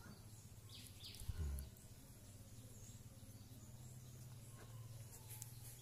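Faint background ambience with a steady low hum, and one brief soft bump about a second and a half in.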